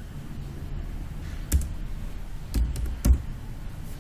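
A handful of separate keystrokes on a computer keyboard, the loudest near the end, over a low steady hum.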